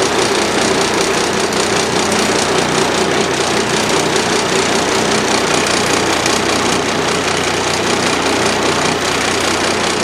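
Charter fishing boat's engine running steadily, an unchanging drone with no rise or fall in pitch.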